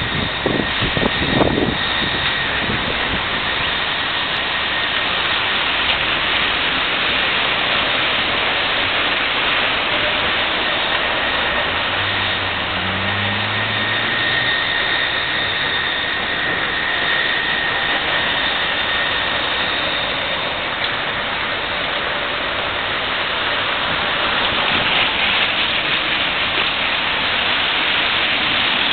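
Steady loud outdoor roar of rain and street traffic. A vehicle engine hums briefly, rising in pitch, about twelve seconds in.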